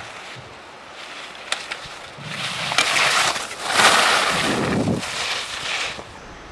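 Skis scraping across snow in carved slalom turns as the skier passes close by. The sound swells about two seconds in, is loudest around four seconds and falls away about two seconds later.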